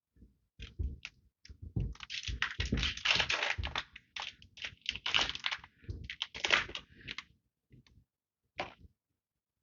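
Magic: The Gathering booster pack's foil wrapper being torn open and crinkled by hand. A few clicks open it, a dense run of crackling follows in the middle, and scattered taps come near the end.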